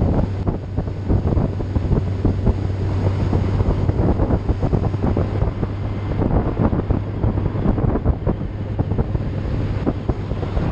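Wind buffeting the microphone at road speed, gusting unevenly over a steady low engine drone.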